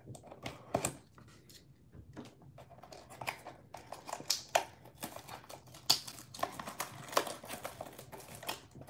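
Cellophane shrink-wrap being picked at and torn off a trading card box: a run of sharp, irregular crinkles and crackles that grows denser from about three seconds in.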